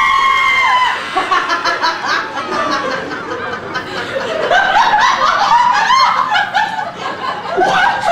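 A small audience laughing, snickering and chuckling together, many overlapping voices. A held high note fades out about a second in, before the laughter takes over.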